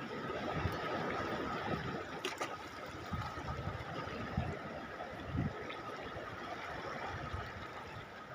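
Sea water lapping and sloshing at the shore's edge: a steady wash with irregular soft low slaps.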